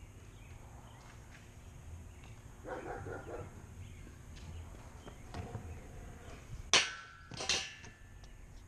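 Stunt scooter hitting a steel grind rail: two sharp metallic clanks less than a second apart, the first the loudest, with the rail ringing after them.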